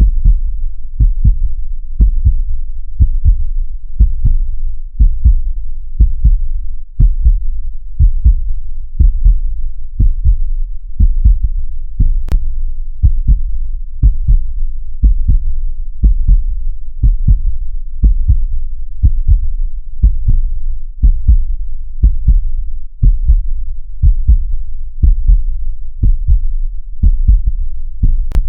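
Heartbeat beating steadily: paired low lub-dub thumps about once a second, in an even, slow rhythm.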